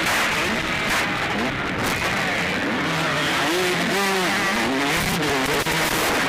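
Several motocross bikes racing, their engines revving up and falling back again and again in overlapping pitch glides, over a constant rough noise.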